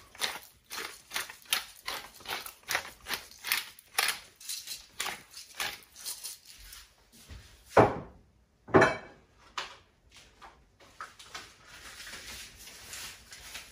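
Wooden pepper mill twisted by hand, grinding peppercorns in regular crunching strokes about two a second. Near the middle there are two louder, short sounds about a second apart that fall in pitch, then a few fainter strokes.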